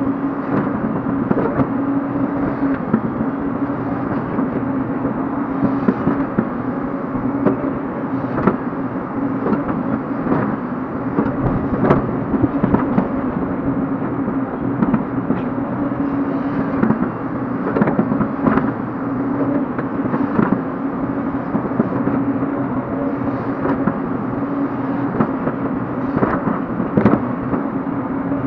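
Hyundai hydraulic excavator's diesel engine running steadily under hydraulic load as the bucket drags and spreads loose soil, with irregular clunks from the bucket and linkage, heard from inside the cab.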